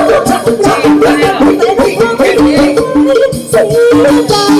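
Loud Thai folk-pop music with a steady beat and a short melody that keeps repeating.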